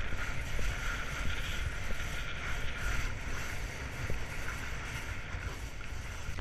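Wind rushing and buffeting over an action camera's microphone during a fast speedriding run, with a steady hiss of skis sliding over snow.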